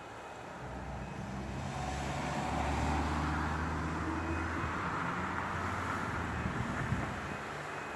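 A passing motor vehicle: a low engine rumble with road hiss swells over the first three seconds, holds, then fades near the end. A faint steady high tone is heard at the start.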